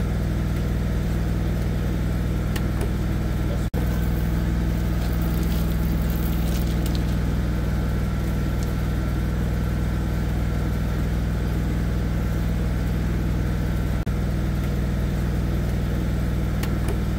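An engine running steadily at idle, a low, even drone, broken off for an instant twice.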